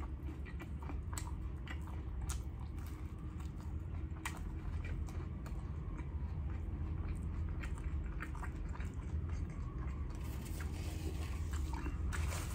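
Close-miked chewing of a chopped cheese sandwich on a hero roll: many small, scattered wet mouth clicks and smacks over a steady low hum.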